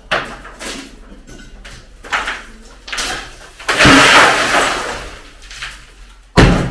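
Knocks and clatter of demolition work: a few short knocks, then a long loud scraping rush about four seconds in, and a sharp bang near the end.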